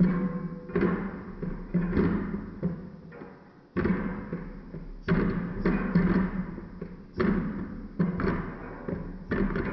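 Background music: plucked or struck notes with soft percussive thumps, roughly one note-attack a second, each ringing and fading.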